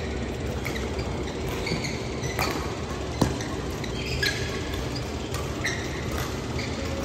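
Badminton rally: rackets striking the shuttlecock with sharp cracks, one much louder hit a little over three seconds in, and shoes squeaking on the court floor several times.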